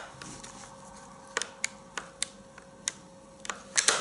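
Sauer 404 bolt-action rifle being worked by hand: a series of sharp clicks from the bolt handle and action, the loudest two close together near the end.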